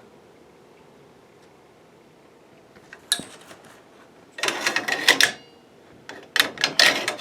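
Metal parts of a Craftsman garage door opener's rail being handled: a click about three seconds in, then two short bursts of clicking, clattering metal.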